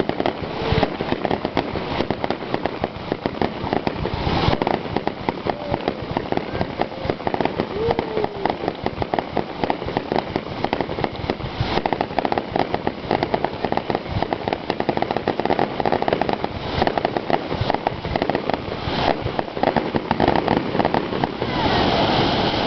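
Fireworks display: a dense, almost unbroken run of bangs and crackling pops. It swells louder just before the end.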